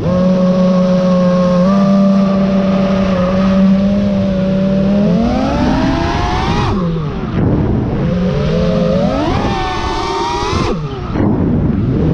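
FPV freestyle quadcopter's brushless motors and propellers whining, holding one steady pitch for about five seconds. The whine then climbs in two rising sweeps as the throttle is punched, each cut off suddenly by a throttle chop, and starts climbing again near the end.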